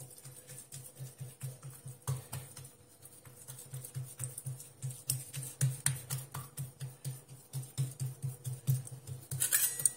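Hands pressing and patting oiled msemen dough on a granite board, with scattered soft taps and clicks. Under them, a faint low pulse repeats about three times a second.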